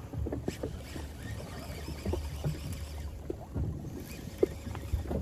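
Water lapping against a small boat's hull, with a low rumble of wind on the microphone and a few light knocks.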